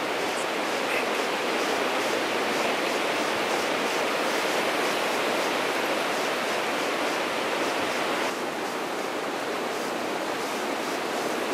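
Strong wind blowing through bare woodland trees: a steady rushing noise that drops slightly about eight seconds in.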